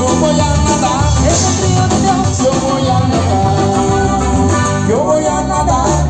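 Christian praise band playing Latin-style music: a singing voice with pitch glides over a steady repeating bass line.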